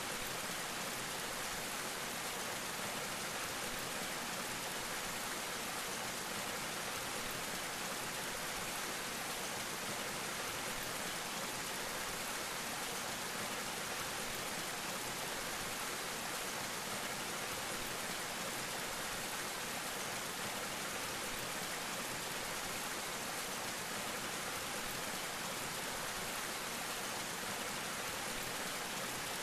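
Steady rush of a small plunge waterfall dropping about 18 feet off a rock ledge and splashing into a pool, without letup.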